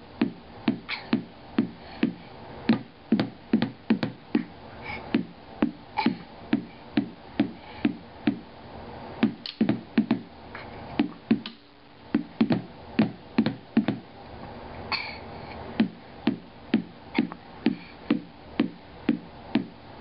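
A toddler beating a drum with wooden drumsticks, uneven but steady strokes about two a second, each giving a short low ring. The beating stops briefly a little past halfway, then carries on.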